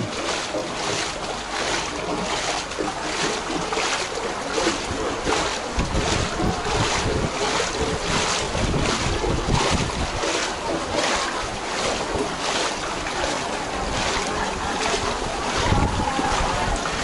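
Footsteps wading through shallow floodwater, a splash with each step about twice a second, steady throughout. Wind rumbles on the microphone now and then.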